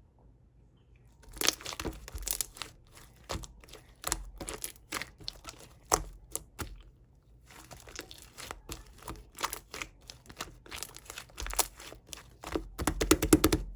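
Crinkling and tearing of a thin material such as plastic or paper being handled: irregular crackles, a brief pause, then a fast run of clicks near the end.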